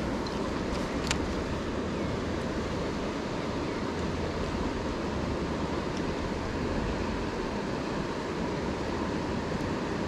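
Steady rushing of flowing river water, with a few faint clicks, the clearest about a second in.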